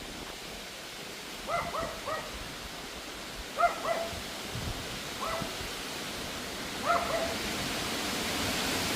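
Pomeranian barking in short, high-pitched yaps, in clusters of one to three every second or two. Steady wind noise runs underneath and grows louder near the end.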